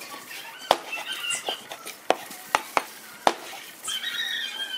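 Meat cleaver chopping raw chicken on a round wooden chopping board: about five sharp chops at uneven spacing.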